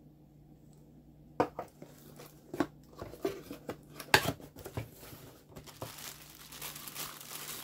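A run of sharp knocks and clicks as a spare fishing-reel spool and its packaging are handled and set down on a table, the loudest a little after four seconds in. About six seconds in, a clear plastic bag is crinkled.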